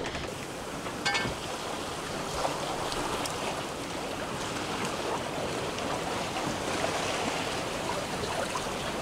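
Choppy open-ocean waves washing along a sailboat's hull as it sails, with wind: a steady rushing noise, and a brief click about a second in.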